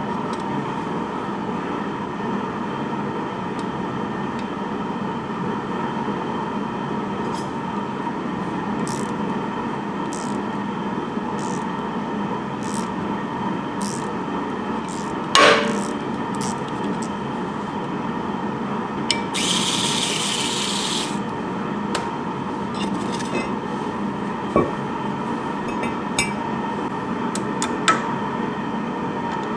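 Hand tools working on a car's rusted rear suspension over a steady workshop hum. About halfway there is one sharp metallic clank that rings briefly, followed a few seconds later by a hiss lasting about two seconds, with a few lighter knocks near the end.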